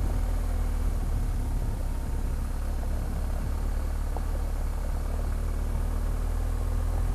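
BMW R 1250 GS Adventure's boxer-twin engine running steadily as the motorcycle rides along a gravel road, a low, even rumble throughout.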